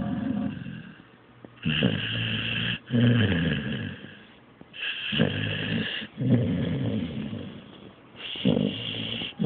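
Blue-nose pit bull snoring in its sleep: about three snoring breaths a few seconds apart, each with a short quiet gap before the next.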